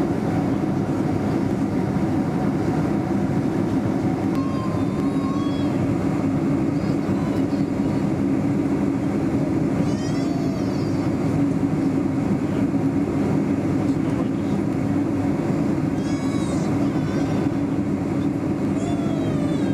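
Steady rumble of a Boeing 747 heard inside the passenger cabin, engines and airflow running evenly, with faint voices in the background a few times.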